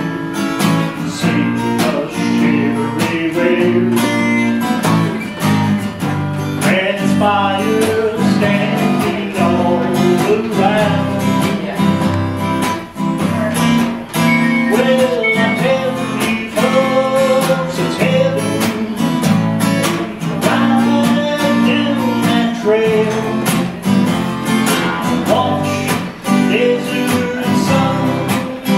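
Acoustic guitars strumming the instrumental close of a country song, with a melody line bending above the chords.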